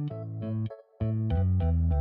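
Background music: electric piano chords played in short phrases, with a brief pause about three quarters of a second in.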